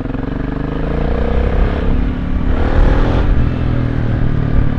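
Honda CB125 TD Super Dream's 125cc parallel-twin engine under way through its loud exhaust, revving as the bike accelerates, its note rising in pitch and growing louder.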